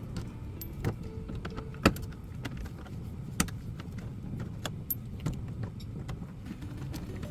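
Plastic underbody cover and its loose screws being handled and taken off: scattered sharp clicks and knocks, the loudest about two seconds in, over a low steady rumble.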